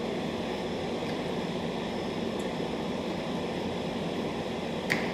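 Steady mechanical hum and hiss of workshop background noise, like a running ventilation fan, with a single sharp click near the end from the hand screwdriver working a screw out of the power seat's metal frame.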